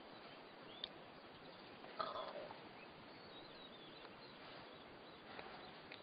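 Faint outdoor bush ambience: a steady low hiss with faint bird calls, a small click just under a second in and a short louder sound about two seconds in.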